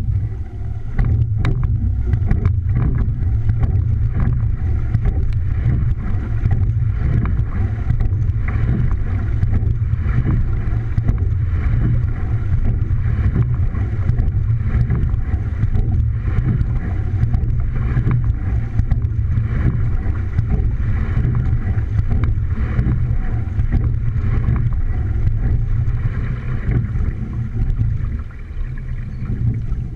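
Single scull racing shell under way at a start, heard from a camera on its bow deck: a steady low rumble of water along the hull and wind on the microphone, with many short knocks from the oars and rigging at the strokes. It comes on suddenly as the piece begins.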